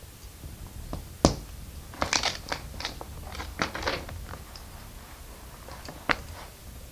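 Plastic LEGO pieces clicking and rattling as they are handled: one sharp click about a second in, a quick cluster of clicks over the next couple of seconds, and another single click near the end.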